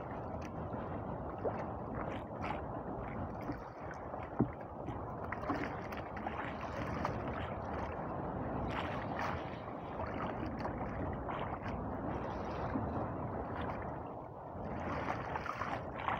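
Sea water sloshing and lapping against the hull of a small boat, with wind, steady throughout, and a few light knocks, the sharpest about four seconds in.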